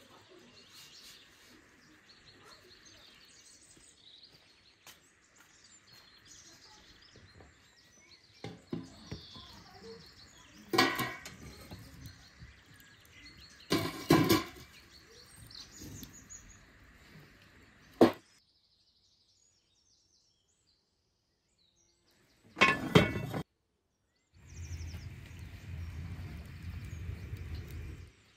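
Metal fire tongs clinking and knocking on a metal pan lid as burning logs and embers are set on top of it, with a few sharp knocks standing out. Near the end comes a steady low rumble.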